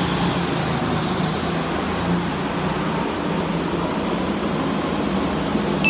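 Go-kart engines running on the circuit, a steady drone carried across an indoor kart hall.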